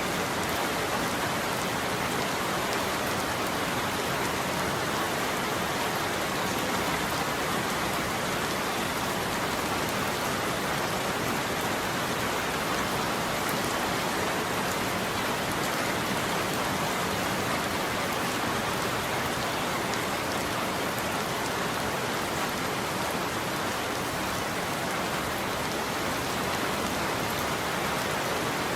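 Steady rain falling on a roof, an even unbroken patter with no thunder.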